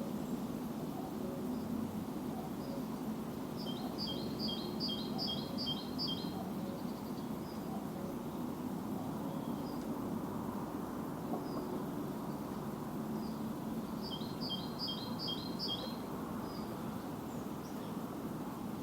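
A songbird sings a phrase of about seven quick, evenly repeated two-part notes, high-pitched. It sings it about 4 seconds in, again about 14 seconds in, and starts once more at the very end, with a few faint chirps in between. A steady low rumble of background noise runs underneath.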